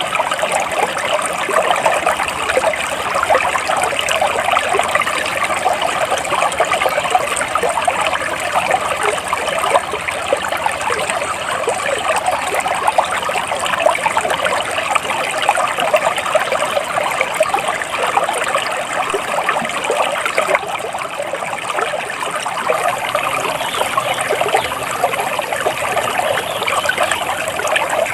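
Water flowing in a small stream, a steady trickling and babbling.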